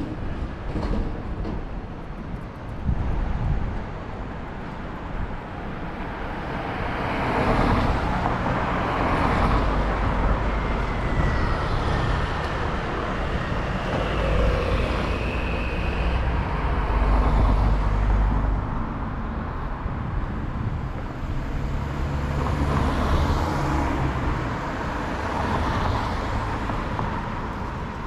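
Road traffic: vehicles passing one after another, each swelling and fading, with a low engine rumble loudest past the middle.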